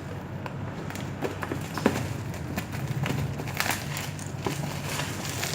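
Hands working at a tightly sealed parcel: scattered taps, clicks and short scrapes of the packaging, over a steady low hum.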